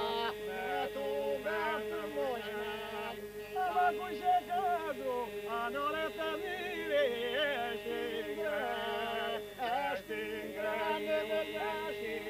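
Men's group singing Albanian iso-polyphony. The chorus holds one steady drone note while lead voices sing wavering, ornamented melody lines above it.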